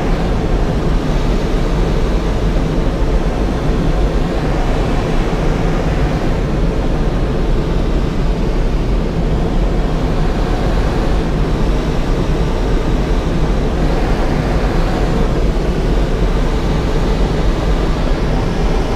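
Steady rush of air streaming past a glider's canopy in unpowered flight, heard from inside the cockpit.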